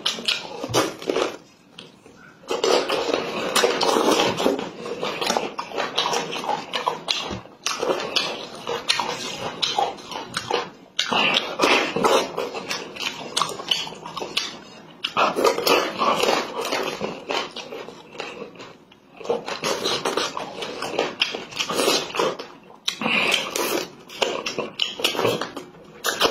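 Close-miked eating sounds of a man chewing boiled chicken and gnawing meat off the bone. Long runs of dense mouth noise are broken by a few short pauses.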